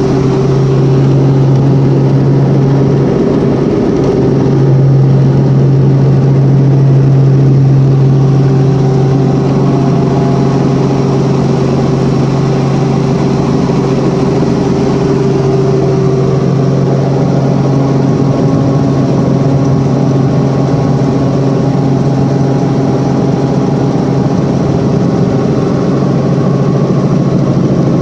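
Light helicopter's engine and rotor heard from inside the cabin in flight: a loud, steady drone with a low hum.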